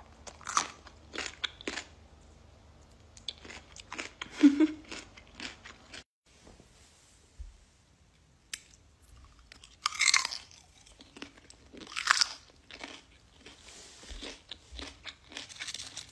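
Raw beetroot being bitten and chewed with crunches. After a short gap come crisp bites into raw garlic: two loud crunches about two seconds apart, then quieter chewing.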